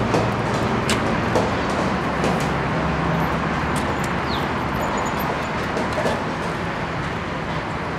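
Steady roadway traffic noise, a low rumble under an even hiss, with a few faint clicks and knocks.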